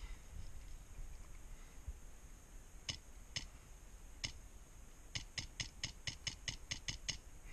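Airsoft rifle, an HPA-powered MTW, firing sharp snapping shots: three single shots a half-second to a second apart, then a quick string of about ten shots, some five a second.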